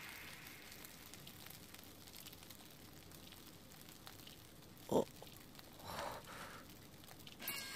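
Faint, steady sizzling of food in a frying pan, with one short low sound about five seconds in.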